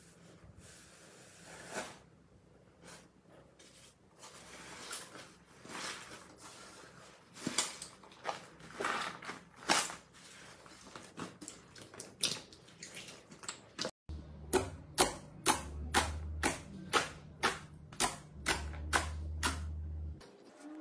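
Foamy green slime packed with small beads being pressed and squeezed by hand, giving irregular crackles and sharp pops. After a cut about two-thirds of the way through, sharp pops come evenly about twice a second over a low steady hum.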